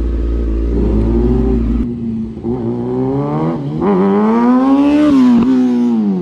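Sport motorcycle engine idling steadily with a deep rumble. About two seconds in it is replaced by a motorcycle accelerating through the gears: the engine pitch climbs, drops back at each shift, climbs again, and falls near the end.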